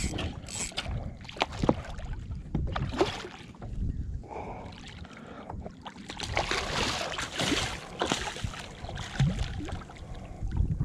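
Wind rumbling on the microphone and water sloshing and splashing around a plastic kayak, with scattered knocks and clicks from the hull and fishing gear. A louder hissing stretch about six to eight seconds in.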